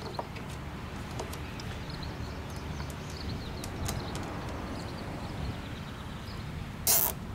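Faint clicks and rustles of hands working a plastic zip tie around a heat cable on a valve, then near the end a short, loud zip as the tie is pulled through its lock.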